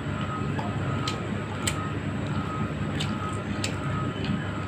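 Close-up eating sounds: a person chewing a mouthful of fried fish, with a few short wet mouth clicks and smacks. Under it runs a steady low background hum.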